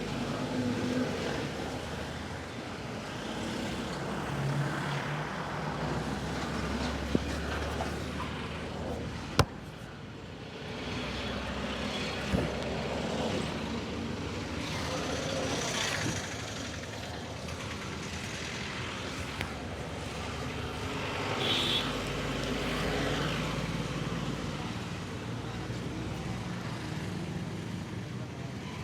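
Street traffic passing, a steady mix of engine hum and road noise, with a few sharp clicks; the sharpest comes about nine seconds in.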